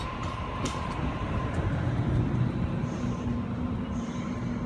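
Sydney Trains Waratah double-deck electric train arriving at the platform and slowing as its carriages pass close by. A low rumble of wheels and motors runs under a steady high whine that fades out early on, and a lower steady hum comes in about three seconds in.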